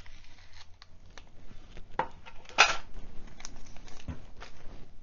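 Thin plastic sleeve around a fountain pen crinkling and crackling as the pen is lifted out of its tin case and handled, in scattered small crackles with one louder crackle about two and a half seconds in.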